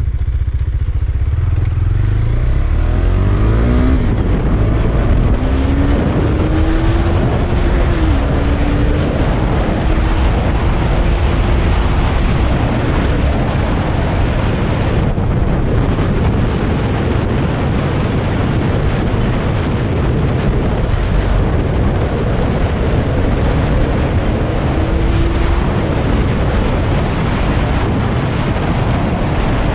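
KTM 250 Duke's single-cylinder engine pulling hard on the move, its pitch rising a few seconds in and dropping at a gear change about eight seconds in, then holding a fairly steady cruise. Heavy wind noise on the action-camera microphone lies over the engine.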